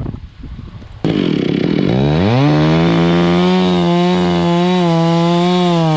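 Chainsaw engine opening up suddenly about a second in, revving up over a second or so and then holding at high, steady speed with slight wavering. Wind noise on the microphone before it.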